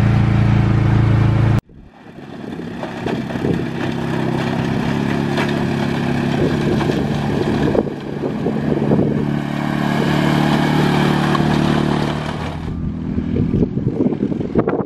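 Polaris Ranger UTV engine running steadily under load as it tows a drag grader over a dirt track. About a second and a half in, the sound cuts off abruptly and resumes as a steady engine note heard from further off.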